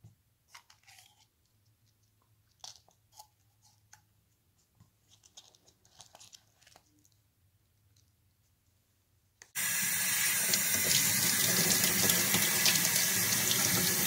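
A few faint clicks and taps of small screws and a plastic pill bottle being handled. About two-thirds of the way in, a tap starts suddenly and water runs steadily over a cupped hand into a utility sink, rinsing rust-dissolving jelly off the screws.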